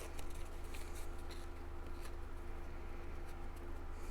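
Light rustling and small taps of card-stock paper pieces being handled and arranged, over a steady low electrical hum.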